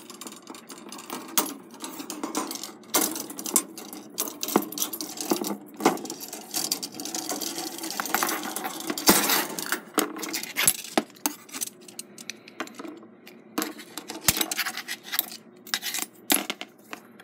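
A loose steel clock mainspring being worked off its brass great wheel arbor by hand: irregular metallic clinks, clicks and scrapes as the spring coils rub and knock against metal.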